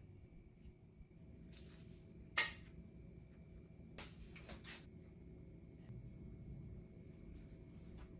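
Faint handling sounds of a hair waver in use: a sharp click about two and a half seconds in, a few more clicks and rustles around four seconds, and softer rustling of hair between them.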